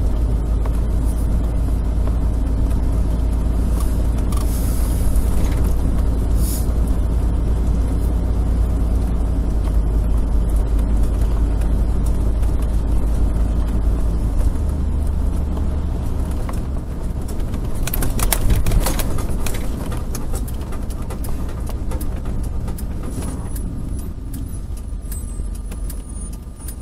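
Motorhome cabin noise while driving: a steady low road-and-engine rumble, with a short burst of rattling about eighteen seconds in, growing quieter near the end as it slows.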